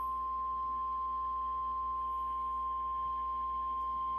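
NOAA Weather Radio warning alarm tone, the 1050 Hz attention signal, sounding as one steady, unbroken beep from the radio. It marks the start of a new weather alert broadcast.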